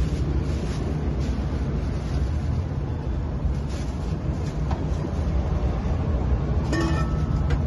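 Steady low rumble of road traffic and motorbikes passing, with light plastic-bag rustling and a brief pitched tone near the end.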